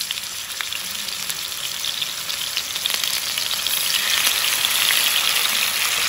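Marinated boneless chicken breasts frying in hot sunflower oil with chopped garlic: a steady sizzle that grows louder about four seconds in.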